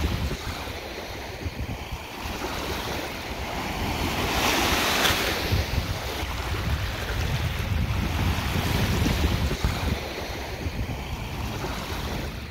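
Small lake waves washing on a beach, with wind rumbling on the microphone. The wash swells louder for a second or two about five seconds in, then eases.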